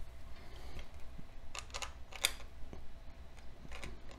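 Light clicks and taps of hands handling multimeter test probes and wires on a plastic baseplate: a few about halfway through and a couple more near the end, over a faint low hum.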